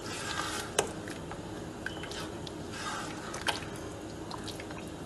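A silicone spatula stirs a pot of thin tomato-and-broth stew, making liquid sloshing and squelching. It taps sharply against the pot twice, about a second in and again past the middle.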